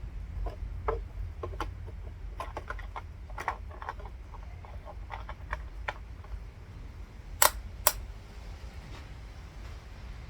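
Scattered light clicks and taps over a low steady rumble, with two sharp, loud clicks about half a second apart a little past the middle.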